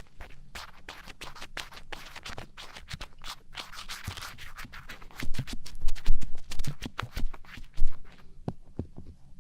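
Close-mic scratching and rubbing on a daruma, a dense run of quick scratch strokes. About halfway through it gives way to louder, deeper thumps and rubs.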